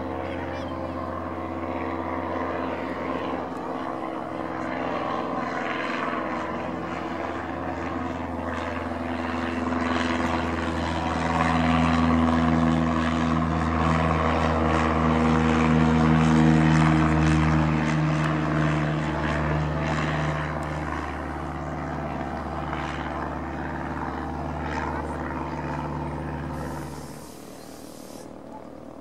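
Cessna 152's four-cylinder Lycoming engine and two-blade propeller at takeoff power as the plane climbs out, a steady engine drone. It grows louder to a peak past the middle, eases off, then drops sharply near the end.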